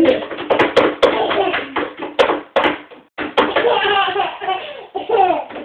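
Small children slapping their hands on a tabletop in quick, irregular knocks while a child's voice runs under them; about three seconds in the knocks stop and a young child vocalises in high, sliding notes.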